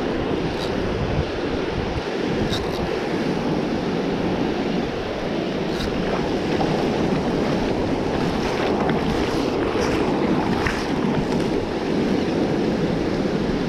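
Ocean surf breaking and washing up a sandy beach in a steady wash of noise, with wind rumbling on the microphone and a few faint ticks scattered through it.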